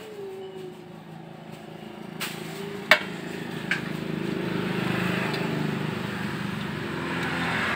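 Three sharp metal clinks of a long-shafted tool working on the cam chain tensioner lifter of a Honda Vario 125. Under them a vehicle engine hums in the background, growing louder toward the middle and then easing off.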